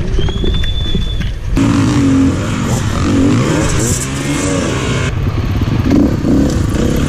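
Enduro dirt bike engines revving hard, the nearest a KTM EXC-F 350 single-cylinder four-stroke, in short cuts that change abruptly about a second and a half in and again about five seconds in. A high steady tone is heard for the first second and a half.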